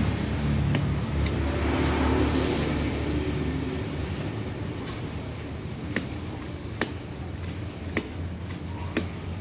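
A passing road vehicle's rumble, loud over the first few seconds and then fading, with about seven sharp clicks and taps from the plastic seat base and vinyl cover being handled.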